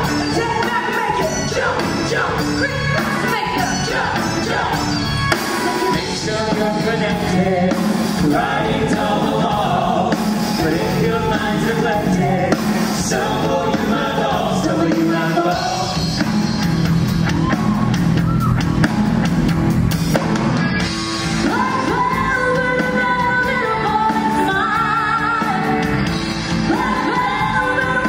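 Singers performing over amplified pop-rock music at a live stage show, with shouts and whoops among the singing.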